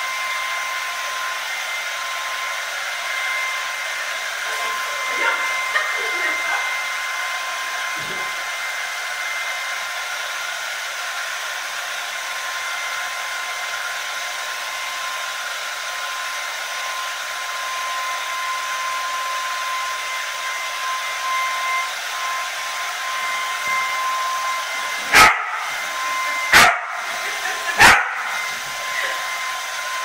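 Hair dryer running steadily, an airy hiss with a constant high whine. Near the end a dog barks three times, sharply and loudly, about a second and a half apart.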